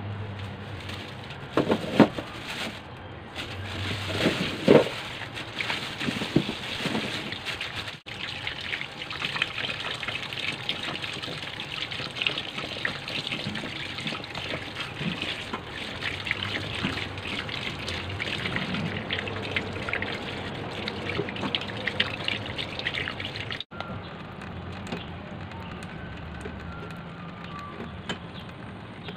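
Tap water running steadily into a stainless-steel kitchen sink as eggs are rinsed by hand under it. Two sharp knocks sound in the first five seconds, the loudest moments.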